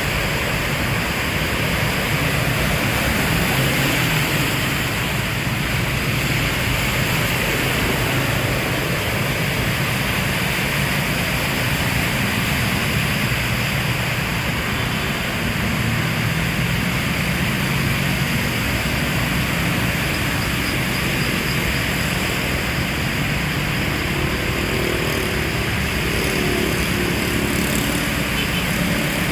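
Heavy rain falling steadily, an even hiss. A faint low drone sits underneath.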